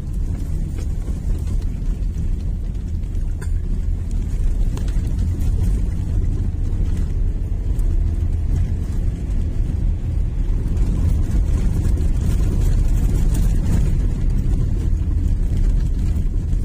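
Toyota Innova Reborn on the move, heard from inside the cabin: a steady low rumble of engine and tyres.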